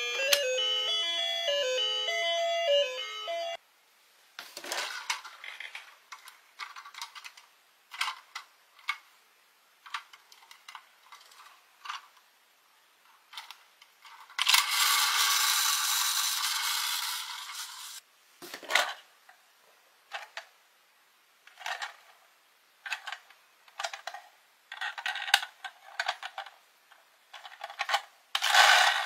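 An electronic tune from a toy bus's sound buttons plays for a few seconds and cuts off. Plastic and die-cast toy buses are then handled, with scattered clicks and rattles, a few seconds of steady whirring from a toy bus's spinning wheels midway, and a knock near the end as one is set down.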